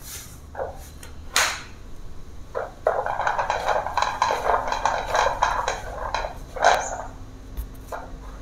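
Hard plastic knocks and clicks as a PVC pipe frame and a blue plastic wheel are handled, with one loud knock about a second and a half in. A fast, continuous plastic rattle runs for about three seconds in the middle, and a sharp knock comes near the end.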